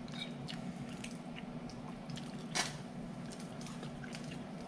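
A fork clicking and scraping on a plate while someone chews a bite of fried fish, with one sharper click about two and a half seconds in. A steady low hum runs underneath.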